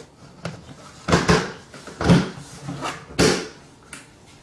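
Several knocks and clunks of parts being handled and set in place while the motor is fitted into a homemade vacuum cleaner. The loudest knock comes about two seconds in, and another about three seconds in.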